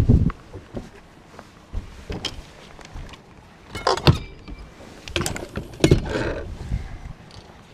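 Irregular knocks, thumps and clicks of someone moving about on a bass boat's deck and handling gear, the loudest thump right at the start and sharper clatter around four and six seconds in.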